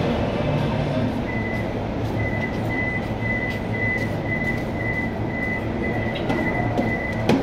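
Metro train's door-closing warning beeping: a high beep repeated about twice a second for several seconds over the low hum of the stopped train. A sharp knock near the end.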